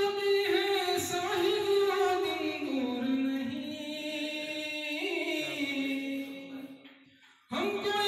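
A man singing a ghazal-style verse unaccompanied, one long drawn-out melodic line held on sustained notes. The pitch steps lower about three seconds in, lifts briefly about five seconds in, then fades out near the end before the voice starts again.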